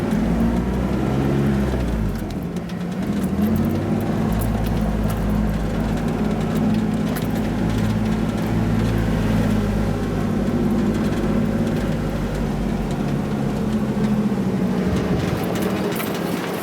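1988 Toyota 4x4's engine pulling steadily in four-wheel-drive low range up a steep dirt hill. Its pitch dips briefly about two seconds in and then holds steady, and the engine eases off near the end.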